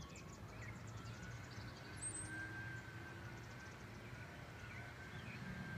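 Faint backyard ambience: small birds giving scattered short chirps over a steady low hum of distant traffic, with a faint steady whine underneath.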